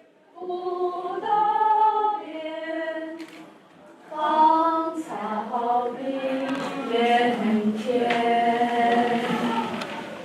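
Voices singing a cappella in long held notes that step from pitch to pitch, without words. It starts as a single line, breaks off briefly about three and a half seconds in, then comes back with several voices overlapping.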